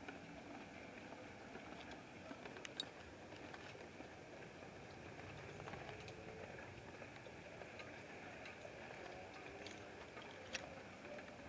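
Faint steady outdoor night background hiss, broken by a few sharp ticks; the loudest tick comes about three seconds in and another near the end.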